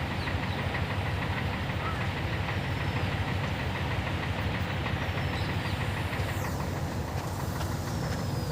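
Heavy diesel engine of earth-moving construction machinery running steadily, a low rumble with a noisy haze above it.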